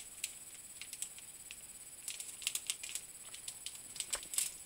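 Small plastic candy wrapper crinkling and crackling in the fingers as it is handled and opened: faint, irregular light crackles, busiest about halfway through and again near the end.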